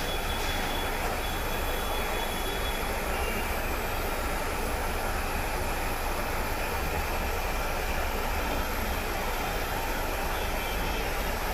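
Soldering torch flame running with a steady, even rushing noise as it heats silver solder to join a small ring onto a silver bangle.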